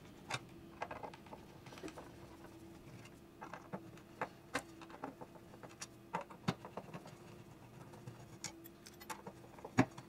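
Small scattered clicks, scrapes and taps of a hand screwdriver backing out a speaker's woofer mounting screws, with the loose screws set down on a paper towel; the sharpest click comes near the end. A faint steady hum runs underneath.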